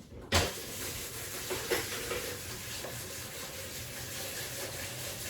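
A knock, then kitchen tap water running steadily into the sink as the mixer beaters are washed out, with a few light knocks of utensils.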